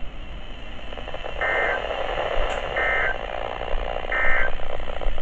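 NOAA Weather Radio SAME digital end-of-message signal: three short, identical bursts of the warbling data tones, about 1.4 s apart, marking the end of the warning just read. They sound over steady radio hiss.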